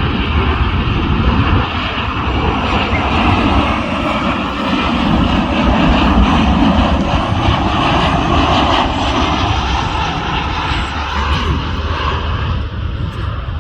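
Airliner's engines passing: a loud, steady rush with a deep rumble, easing off slightly near the end.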